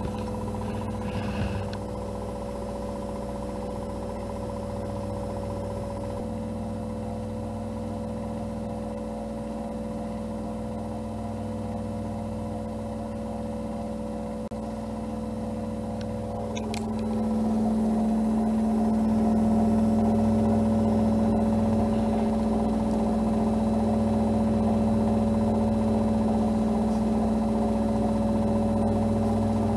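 Regal 8121 washing machine with a brushless DC drum motor running its 1200 rpm spin program: a steady machine hum with a few fixed tones, which grows louder about 17 seconds in.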